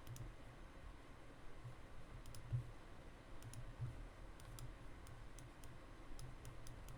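Faint computer mouse clicks, about a dozen, irregularly spaced, some in quick pairs, with a few soft low thumps.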